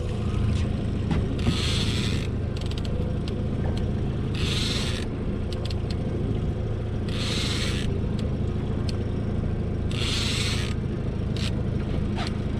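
Boat motor running steadily beneath five short rasping bursts, about one every three seconds, with scattered light clicks, from a fishing reel being cranked in to bring a line up.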